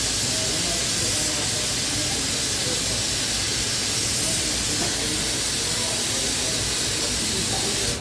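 Rotary bottle filling machine running with a loud, steady hiss of air, with faint voices underneath.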